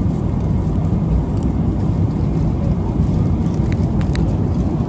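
Steady low rumble of a jet airliner's cabin in flight, with a few faint clicks about four seconds in.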